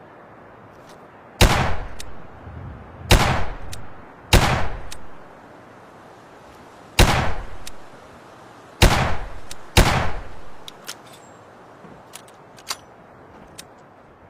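Chiappa Rhino short-barrel revolver fired six times at an uneven pace, each shot loud and sharp with a trailing echo. A few faint clicks follow.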